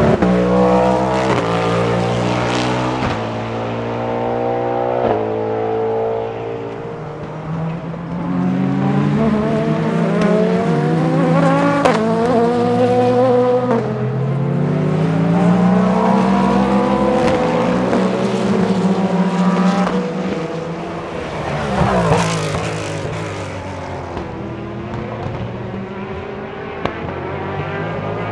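Cadillac V-Series.R LMDh prototype's 5.5-litre V8 race engine, heard trackside. It accelerates hard through the gears, the pitch climbing with each gear and dropping at each upshift, with stepped downshifts on braking. About 22 seconds in it passes close and its note falls, then it runs on more quietly in the distance.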